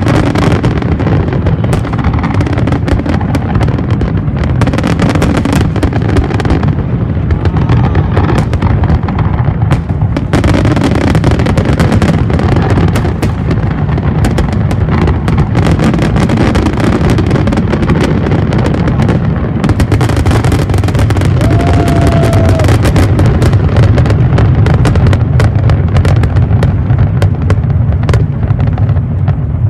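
Aerial fireworks display: a dense, nearly unbroken barrage of booms and crackling bangs over a heavy low rumble.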